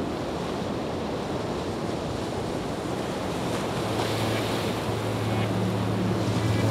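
Steady rushing wash of sea waves, with a low steady music drone coming in about halfway and a second, higher note joining near the end.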